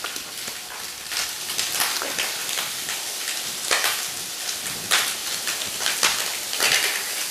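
Broccoli and ham sautéing in a stainless steel pan: a steady sizzle with scattered crackles.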